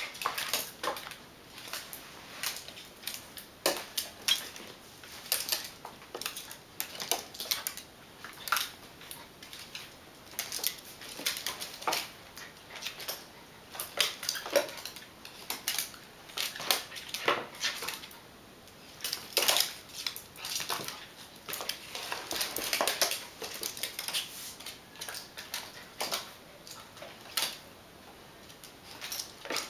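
Dogs' claws clicking, tapping and scrabbling on a wooden parquet floor as two small dogs play-fight, in quick irregular flurries.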